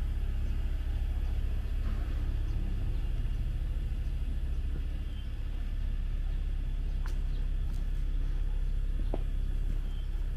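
Steady low rumble of wind on the microphone, with a couple of faint short clicks over it.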